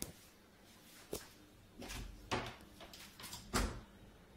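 A few short, soft knocks and thuds at uneven intervals, the loudest about three and a half seconds in.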